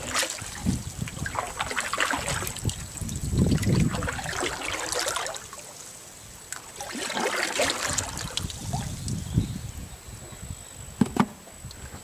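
Kayak paddle strokes in calm water: the blades dip and splash, with water dripping off them, in swells every few seconds. Two sharp knocks near the end.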